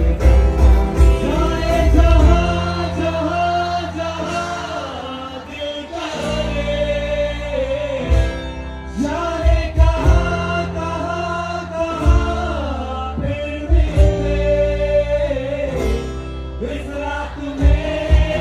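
Live band playing a song, with a male singer's voice carrying the melody over bass and drum hits, heard through a phone microphone at the stage.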